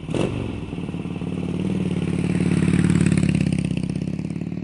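Motorcycle engine running with a fast, even pulse, growing louder to a peak about three seconds in, then easing off a little.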